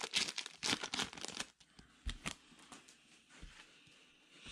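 Trading cards being flipped and shuffled through by hand: a quick run of card slaps and rustles in the first second and a half, then a few single clicks.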